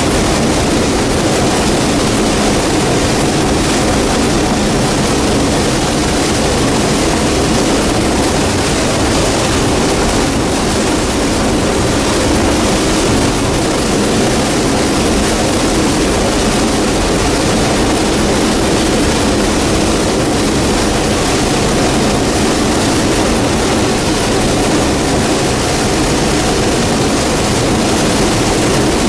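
Allis-Chalmers Gleaner combine running steadily while harvesting corn: a loud, even drone of its diesel engine and threshing machinery.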